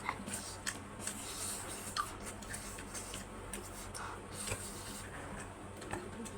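Noodles being eaten: scattered small wet clicks and mouth smacks of chewing, irregular and close.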